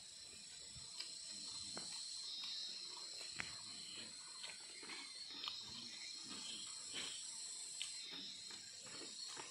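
A steady high-pitched insect drone from the field, with soft chewing and scattered small clicks of fingers eating rice off a banana leaf.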